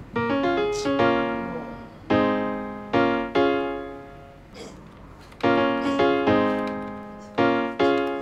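Background piano music: slow chords, each struck and left to die away, about nine in all.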